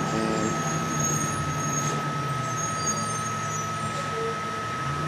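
A 3D printer running: a steady hum under a constant high whine, with short motor tones that change pitch now and then as its stepper motors move.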